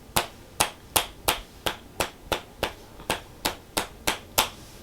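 Sharp tapping on the neck, about three crisp clicks a second in a steady rhythm: the cervical spine being tapped to loosen it before a chiropractic adjustment.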